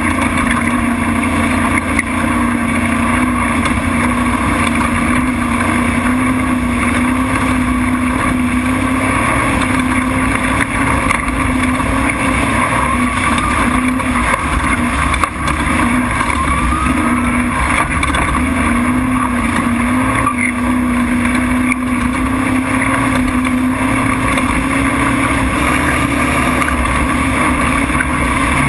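Race truck engine running under steady load at a near-constant pitch, over a constant rush of wind and road noise; the engine note eases briefly about halfway through, then holds steady again.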